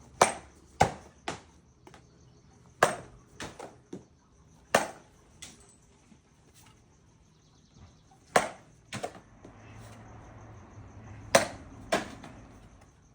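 A baseball bat hitting balls in a one-hand hitting drill: a series of sharp cracks a few seconds apart, several followed about half a second later by a second, softer knock.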